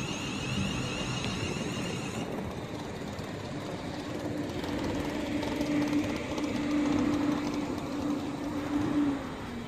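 Class 350 electric multiple unit standing at the platform with its onboard electrics running. A high whine cuts off about two seconds in, and a steady lower hum runs from about four seconds until just before the end.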